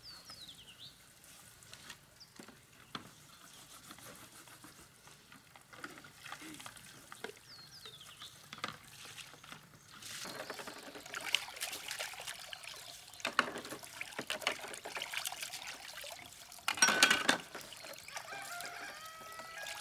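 Water tipped out of a plastic basin, pouring and splashing onto the ground, then hands washing and sloshing in a basin of water, with a short louder splash near the end. A few faint bird chirps come before the pouring starts.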